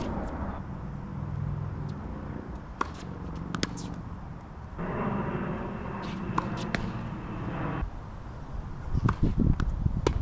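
Tennis ball struck by rackets and bouncing on a hard court: a handful of sharp pops spread out over several seconds. A steady rumble of road traffic lies beneath, changing level abruptly a few times.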